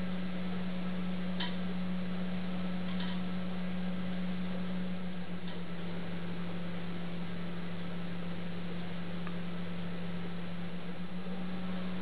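Steady low hum over a background hiss, with a few faint clicks in the first half.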